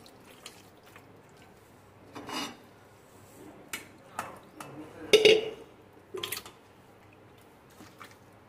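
Metal cookware knocking and clattering as marinated mutton pieces are put by hand from a steel bowl into a metal pressure cooker. There are about five separate knocks, and the loudest clank comes about five seconds in.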